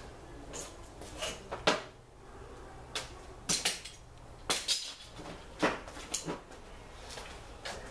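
Irregular clatter of hard objects being picked up, shifted and set down while rummaging, about a dozen separate knocks and clicks. The sharpest come near two seconds in and again around four and a half seconds in.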